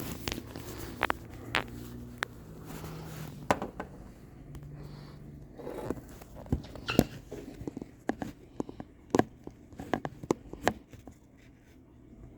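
Irregular small clicks and taps of metal tweezers working at a phone charger cube's metal contact, prying it down.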